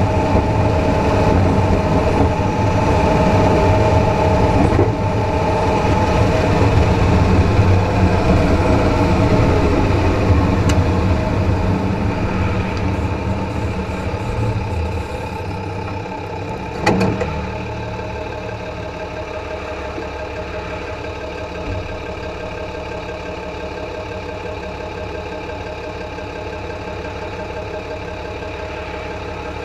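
Dodge Ram pickup driving at road speed, heard from under the front end: tyre and road rumble with the steady running of the front axle and drivetrain turning with the wheels. The rumble eases off about halfway through, with a single sharp knock a second or so later.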